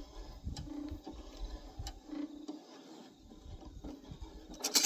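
Light metallic clicks and handling noises as a stainless steel pump fitting is unscrewed by hand, with one sharper, louder clatter near the end.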